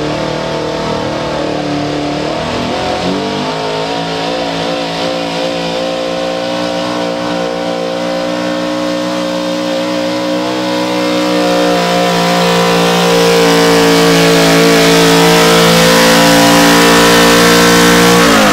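Small-block V8 of a square-body Chevrolet street-stock pickup running at full throttle while pulling a weight-transfer sled. The revs jump up about three seconds in and then hold high and steady. The engine grows louder as the truck comes closer, and the revs drop away sharply at the very end as the driver lets off.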